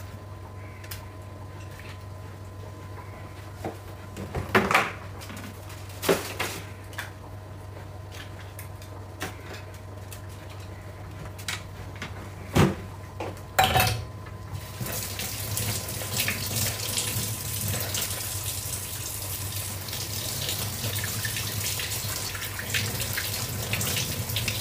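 A handful of sharp knocks and clatters of utensils against the sink and counter, then from a little past halfway a kitchen tap runs steadily into a stainless steel sink. A steady low hum lies under it throughout.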